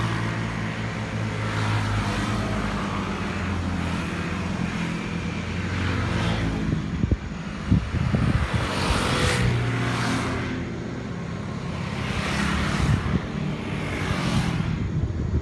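Road traffic: motor scooters and other vehicles driving past one after another, their engines droning and swelling as each goes by. Two sharp knocks come about halfway through.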